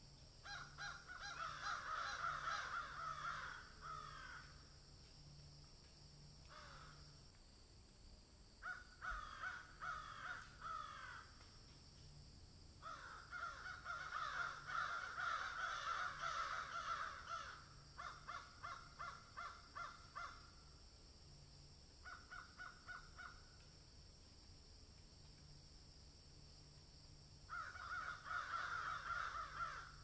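Cheetah chirping: bursts of rapid, high, bird-like chirps lasting a few seconds each, repeated about half a dozen times with short pauses between.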